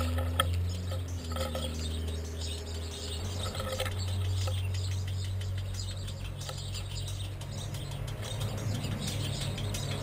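Grey squirrel feeding on seed on a wooden bird table close to the microphone, with small irregular crunching and scrabbling clicks and some bird chirps, over a steady low hum.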